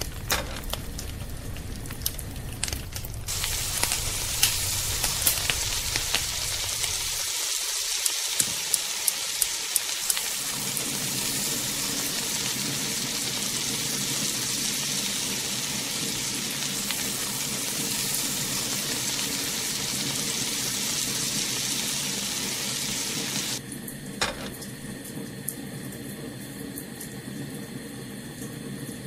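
Breaded chicken deep-frying in hot sunflower oil in an iron wok: a steady sizzle with sharp crackling pops. About 23 seconds in, the sizzle drops to a quieter hiss.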